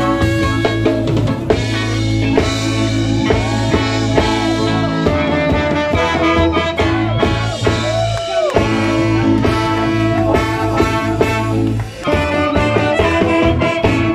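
Live ska band playing loud, with drum kit, bass and electric guitar, and a brief break about eight seconds in.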